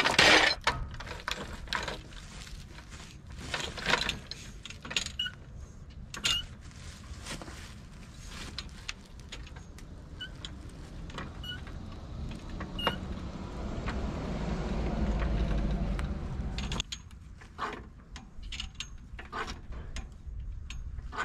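Floor jack being dragged into place under a car's cross member and its handle pumped to lift the front end: irregular metal clanks, clicks and rattles, loudest at the start. A low rumble swells and fades midway through.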